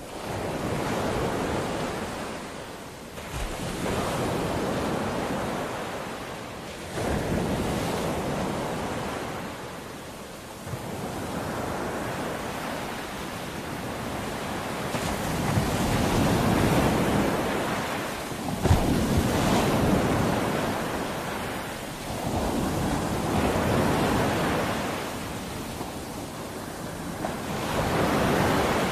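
Small waves washing onto a sandy shore, the surf swelling and fading every three to four seconds, with a brief sharp knock a little past the middle.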